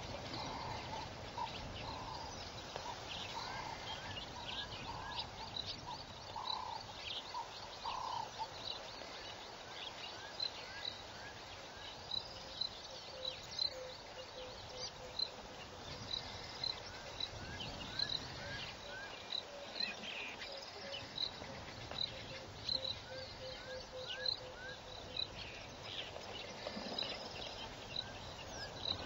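Animal calls in the bush: many short chirps and whistled notes overlapping, with high pips repeating throughout and a steady run of lower pips from about twelve to twenty-five seconds in.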